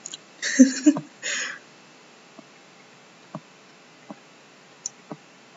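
Two short bursts of breathy giggling in the first second and a half, then a few faint, widely spaced computer mouse clicks.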